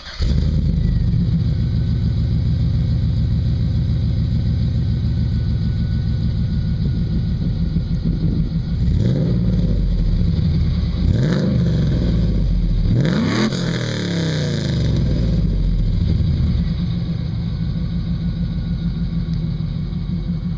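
1999 Pontiac Trans Am's LS1 V8 through a Magnaflow exhaust: it fires up at the very start, idles, and is blipped three times quickly about halfway through, the last rev the highest, before settling back to idle.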